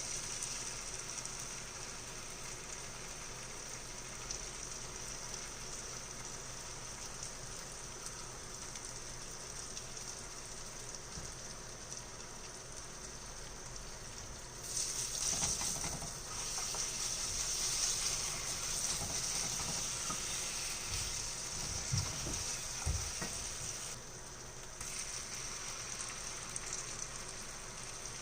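Food sizzling in a frying pan, a steady hiss that grows louder about halfway through, with a couple of short knocks near the end.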